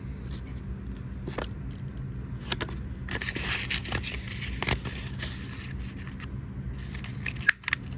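Small packets of dried herbs (bay leaves, mint) being handled and put back into their packaging, rustling and crinkling with a few sharp clicks, louder in the middle. A steady low hum runs underneath.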